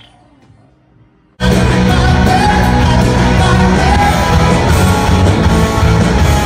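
Loud pop-rock song with singing and heavy bass that cuts in suddenly about a second and a half in, after faint voices.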